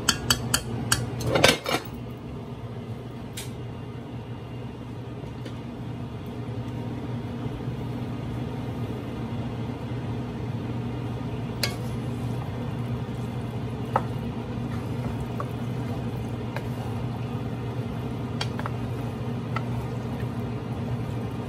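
A metal spoon clinks and taps against the rim of an aluminium cooking pot several times in the first two seconds as food is scraped off it. A steady low hum follows, with a few faint clicks.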